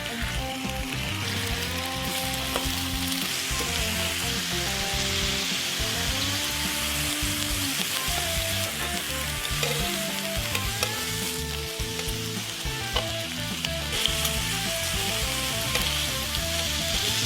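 Food frying in a hot pan, with a steady sizzle throughout, under a soft background melody.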